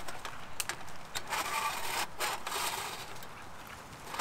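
Small folding metal twig stove being handled: a few light clicks, then two stretches of thin metal panels scraping and rubbing against each other, each about a second long.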